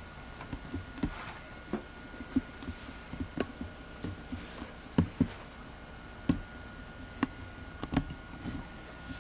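Footsteps and knocks of someone walking about a small room, irregular thuds at uneven spacing, the loudest about five seconds in and again near eight seconds, over a faint steady high whine.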